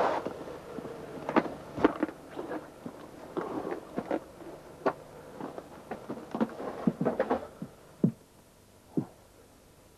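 Footsteps and handling noise in a narrow timber-lined trench: irregular knocks, scuffs and scrapes, thinning out to two separate knocks near the end.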